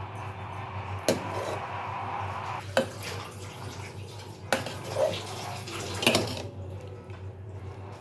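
Kitchen utensil sounds: four sharp knocks of a utensil against a dish or pot, spaced about a second and a half apart. Between the first two knocks there is a stretch of rushing, water-like noise.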